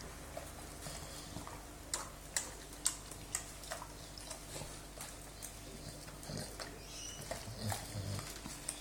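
Aussie bulldogs breathing noisily and chewing, with lip-smacking. A string of short sharp clicks comes about two to four seconds in.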